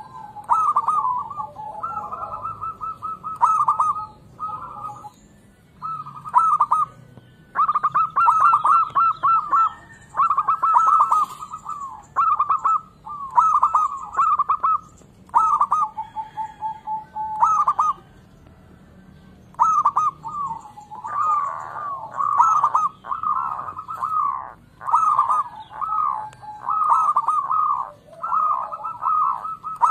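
Zebra dove (perkutut) cooing: phrase after phrase of quick staccato notes, with a break of about a second and a half a little past the middle.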